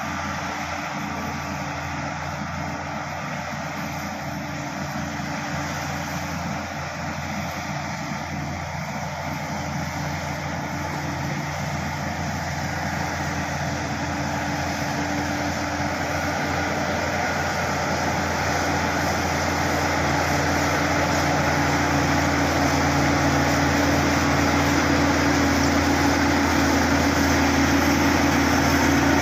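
Bulldozer diesel engine running steadily, growing gradually louder.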